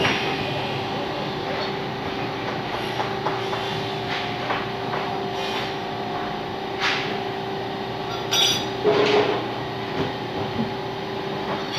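Steady hum of workshop machinery, with a few sharp metal knocks and a brief clatter about eight to nine seconds in.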